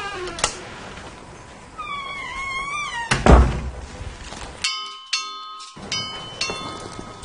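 A wavering high-pitched squeal lasting about a second, then a heavy thud a little after three seconds in. From about four and a half seconds a mobile phone rings with a beeping electronic ringtone, repeating note after note.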